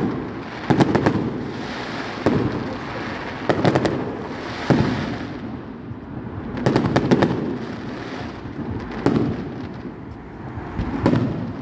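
Aerial firework shells bursting: sharp bangs, often in quick runs of two to four, coming every second or two, each followed by a low rolling echo.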